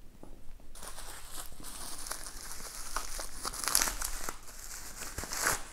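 Clear plastic wrapping crinkling and rustling as a metal kit part is unwrapped by hand. It starts about a second in and is loudest a little after the middle.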